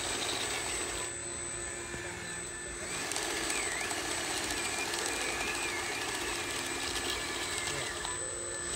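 Radio-controlled model crawler bulldozer running steadily as it tracks and pushes through mud and gravel, a continuous mechanical drone.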